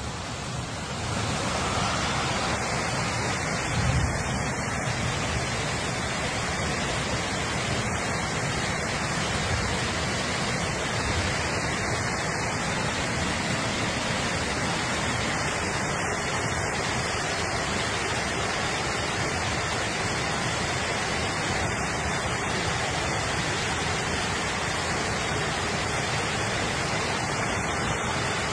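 Floodwater rushing through a street in a steady torrent, with a brief low thump about four seconds in.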